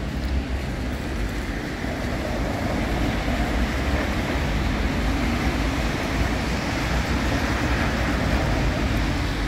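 Traffic on a wet city street: cars and a box truck driving past, a steady rush of tyre and engine noise with a low rumble.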